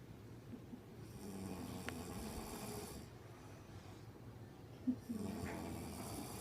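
An elderly woman snoring in her sleep: two snores, each about two seconds long and about four seconds apart, the second opening with a short sharp catch.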